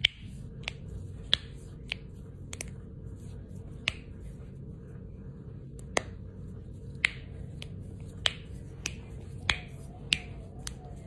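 Finger knuckles cracking one after another, about a dozen sharp pops at uneven gaps of half a second to two seconds, over a steady low background hum. These are the hypermobile finger joints of a person with Ehlers-Danlos syndrome.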